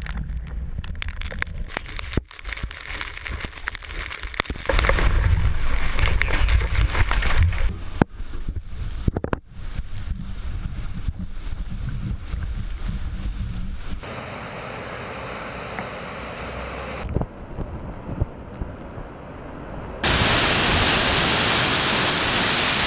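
Hurricane wind and surf crashing, gusting unevenly and buffeting the microphone with a low rumble. After sudden changes about two-thirds of the way in, the sound settles into the steady, loud hiss of heavy wind-driven rain.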